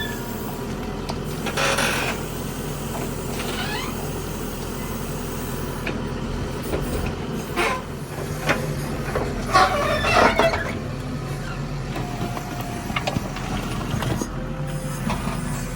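Mahindra backhoe loader's diesel engine running steadily, with a few short hissing, clattering bursts, the loudest about 10 s in.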